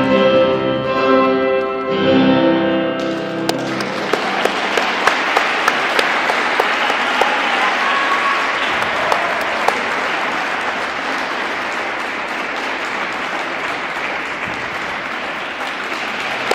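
Programme music ends about three and a half seconds in, and the audience then applauds, with a few sharp claps standing out close by.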